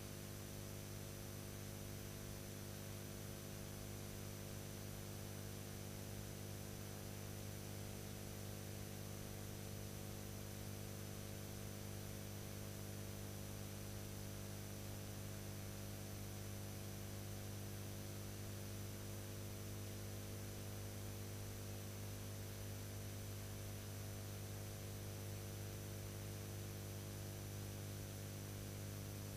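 Steady electrical mains hum with a thin high whine and hiss, unchanging throughout: the background noise of an old film or tape transfer, with no sound of the machinery shown.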